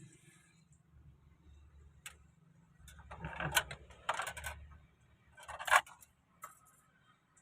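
Small metal clicks and rattles with scraping, the clatter of tools or parts being handled, ending in one sharp clack a little before six seconds in.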